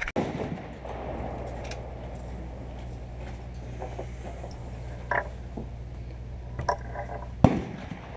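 A steady low mechanical hum with a few short knocks, and one sharp bang near the end.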